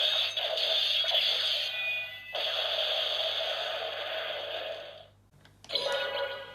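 Electronic sound effects and music from the small built-in speaker of a Kamen Rider Saber holy sword toy (enlarged DX-style version): a tinny run of effects, then a long hissing slash effect that fades away, a brief pause, and a new effect starting near the end.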